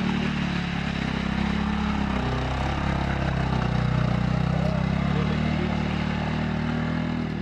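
Quad bike (ATV) engine running under load as it pulls along a dirt trail. Its pitch dips briefly about two seconds in, then rises and holds steady.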